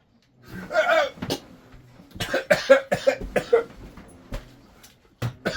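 A person coughing in a fit, a string of sharp coughs and splutters, the burn of a just-tasted ghost pepper hot sauce.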